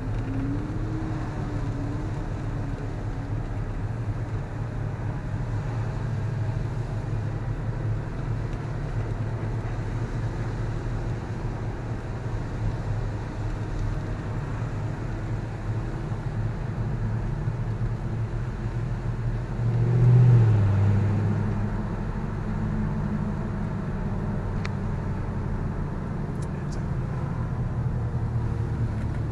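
Mercedes SLK 55 AMG's V8 running as the open-top car drives along, under steady road and wind noise. About twenty seconds in, a brief louder swell falls in pitch.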